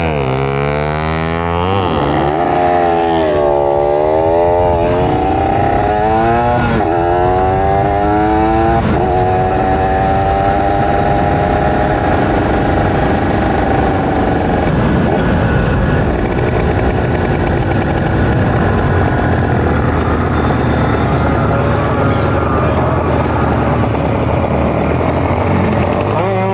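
Two-stroke single of a Kawasaki Ninja 150 RR accelerating hard from a standstill, heard from on board. It revs up and shifts up about four times in the first nine seconds, then holds high revs, and later runs lower with a rushing noise as it eases off.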